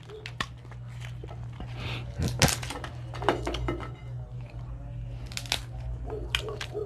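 Dungeness crab shell cracking and being pulled apart by hand close to the microphone: scattered sharp cracks and crinkling, the loudest about two and a half seconds in, over a steady low hum.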